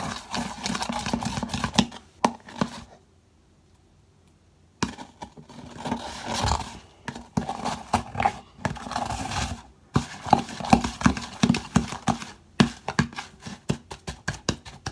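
A metal spoon stirring and scraping slushy homemade slime in a plastic bowl, giving a quick, uneven run of clicks and knocks against the bowl. It stops for about two seconds around three seconds in, then carries on.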